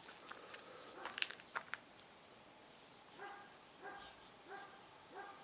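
A dog barking repeatedly, four short evenly spaced barks in the second half. A few sharp knocks come in the first two seconds.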